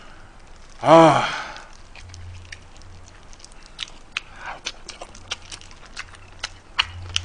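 Close-miked eating of spicy blue crab: chewing, with many short sharp clicks and cracks from the spoon, the pan and the crab shells. About a second in, a short voiced exclamation cuts in.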